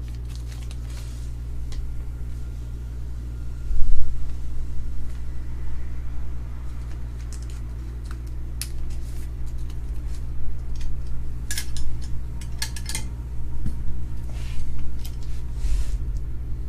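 Trading cards and their packaging being handled on a table: scattered short clicks, taps and rustles, with one louder thump about four seconds in, over a steady low electrical hum.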